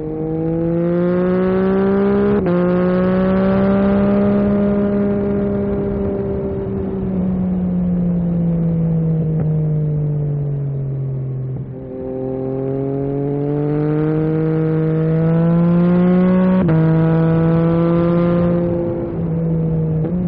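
Yamaha MT-09 SP three-cylinder engine through an Akrapovic carbon exhaust, heard from the rider's seat. It pulls up through the revs, falls slowly as the throttle eases for several seconds, then accelerates hard again. The note drops sharply once and breaks briefly again near the end as it changes gear.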